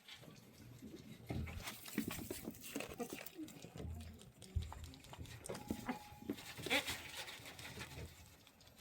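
Goats calling now and then, the clearest call about two thirds of the way through, amid scattered light knocks and shuffling.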